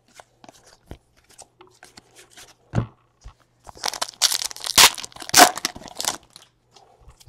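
Light clicks of trading cards being handled and a short knock nearly three seconds in. Then, for a couple of seconds, a foil baseball card pack is torn open with several loud rips and crinkles.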